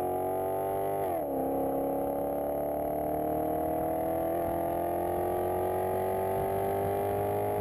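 Maserati GranTurismo V8 through an MC Sportline aftermarket exhaust, heard right at the tailpipe while accelerating. The engine note drops sharply with an upshift about a second in, then climbs steadily in the next gear.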